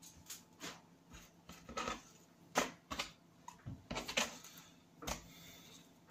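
Knife blade clicking and scraping against a plastic chopping board while cutting fish: an irregular string of short taps and scrapes, the sharpest about two and a half seconds in and again about four seconds in.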